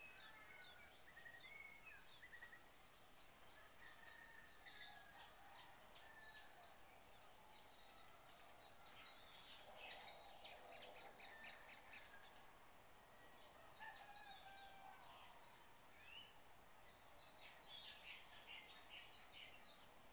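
Faint chorus of several birds chirping and whistling, busier in a few stretches, over a low steady background hiss.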